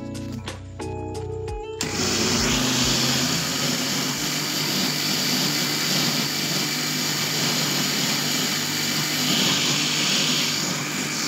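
Electric blender running steadily as it blends a mango shake; the motor starts about two seconds in, after a moment of background music.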